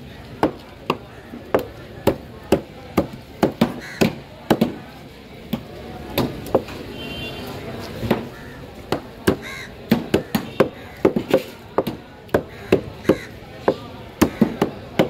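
A large knife chopping raw fish into chunks on a wooden cutting board: a run of sharp chops about two a second, with a short pause around the middle.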